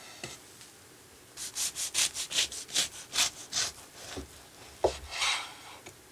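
Kitchen knife sawing through the baked crust of a blueberry cream cheese loaf cake on a wooden board: about a dozen quick scratchy strokes, roughly four a second. A sharp knock follows just before the five-second mark, then one more longer scrape.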